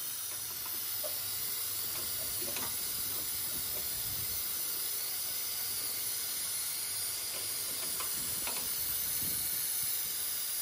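Steady hiss of refrigerant gas venting from the opened line of a ductable split AC, as the system's pressure is released before the faulty compressor comes out. A couple of faint clicks sound through it.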